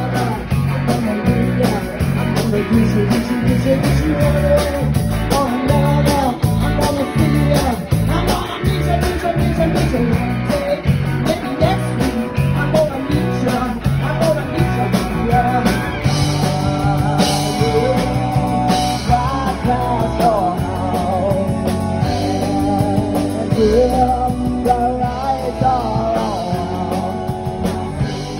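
Live rock band playing: electric guitar and drums with a singer's voice over them.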